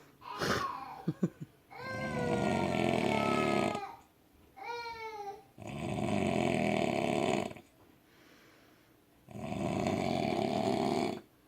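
Loud snoring from a heavily drunk man in deep sleep: three long snores, each about two seconds, coming roughly every three and a half seconds. A brief high-pitched sound comes between the first two.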